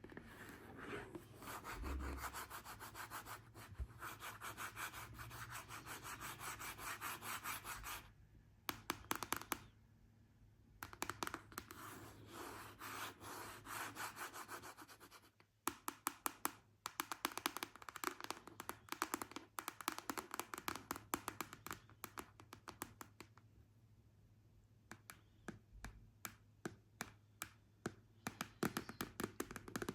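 Long fingernails scratching rapidly on a surface in long stretches, broken up by runs of sharp nail taps, which quicken and grow louder near the end.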